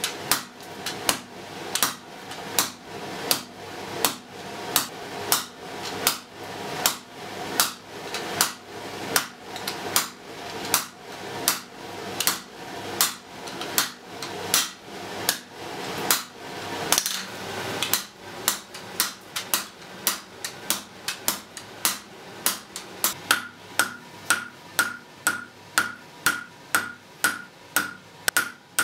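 Blacksmith's hand hammer striking a red-hot iron bar on an anvil in a steady rhythm of blows. About two-thirds of the way through the blows come quicker and each one rings with a clear metallic ping.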